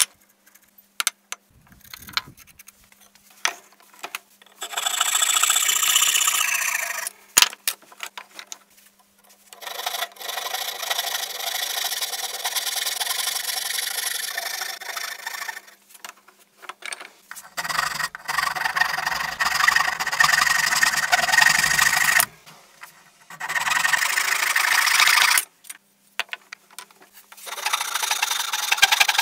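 Hand saw cutting into a wooden hatchet handle, a row of separate kerfs: about five bouts of sawing strokes of a few seconds each, with short pauses between. A few sharp knocks in the first few seconds.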